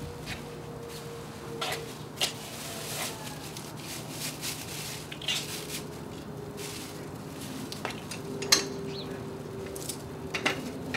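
Quiet outdoor background with scattered light clicks and rustles: a plastic shopping bag being handled and hung on the handlebar of a small child's bicycle as it is mounted.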